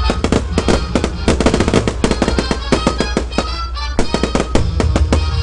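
Aerial fireworks bursting and crackling in a rapid run of sharp pops, with music playing underneath.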